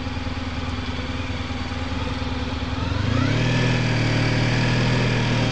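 Honda motorcycle engine running at a low, steady note, then rising in pitch and getting louder about three seconds in as the bike accelerates, holding at the higher note.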